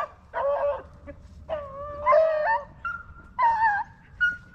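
Rabbit-hunting dogs baying, about five separate howling calls that slide in pitch: the pack giving voice as they run the rabbit's track.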